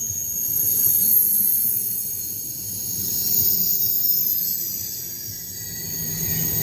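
20-car KTX high-speed train rolling slowly past a station platform. A low rumble swells and fades every few seconds as the cars go by, under a steady high-pitched whine.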